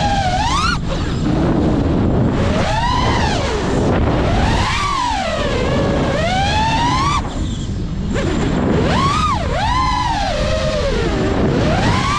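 FPV racing quadcopter's brushless motors whining, the pitch sweeping up and down as the throttle is punched and eased. The whine drops away briefly about a second in and again around seven seconds in, as on throttle cuts. Wind rushes on the microphone underneath.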